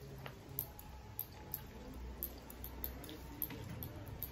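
Wet eating sounds of rice and curry eaten by hand: chewing and squishing, with irregular sharp wet clicks.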